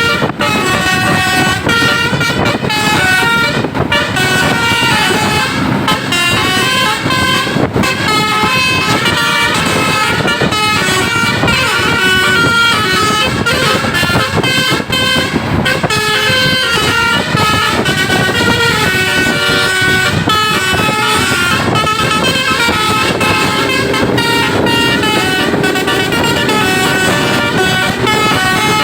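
Bus telolet basuri musical horn playing a melody, its tones stepping up and down in pitch, over steady vehicle noise.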